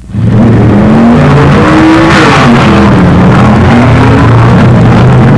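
Drag racing cars at full throttle, loud engines pulling away down the strip. The engine pitch climbs for about two seconds, drops back, then climbs again near the end, as with gear changes.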